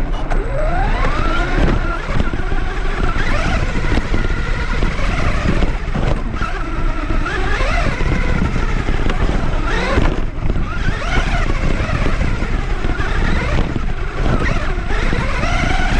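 Traxxas Rustler 4x4 VXL RC truck's Velineon brushless motor and drivetrain heard from on board, the whine rising and falling in pitch again and again as the throttle is worked, over a rough rumble of the tyres running on dirt and grass.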